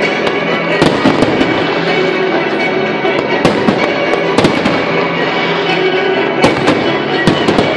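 Professional aerial fireworks display: shells and mines bursting in quick succession, a dense run of bangs with several louder reports, over music playing with the show.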